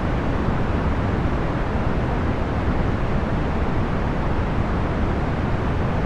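Procedurally generated box fan noise: a steady, even rushing, heaviest in the low end, with no hum, tone or change.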